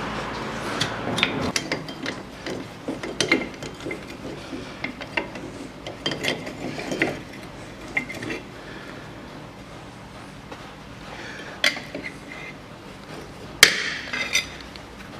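Hand tools working metal parts of a car's rear brake and hub assembly: irregular clicks and clinks, with a few sharper metallic knocks near the end.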